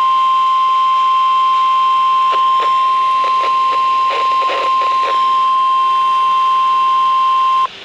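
NOAA Weather Radio 1050 Hz warning alert tone: one steady, loud pitch over radio hiss that cuts off sharply near the end, signalling that a warning message follows. Faint voice-like sounds and clicks lie beneath the tone midway through.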